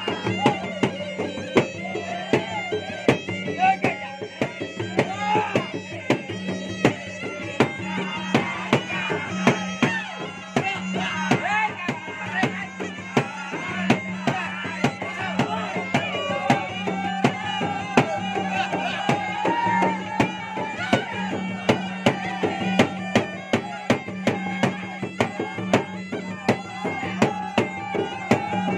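Two Makassarese gendang drums beaten with sticks and hands in a fast, dense rhythm, under a reedy melody played on a shawm, with a steady low drone beneath.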